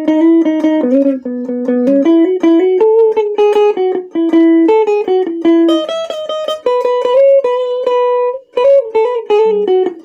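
Electric guitar playing a single-note lead melody, one note at a time, with a few notes held longer, through a Mooer Yellow Comp compressor pedal and a Caline Clear Boost pedal.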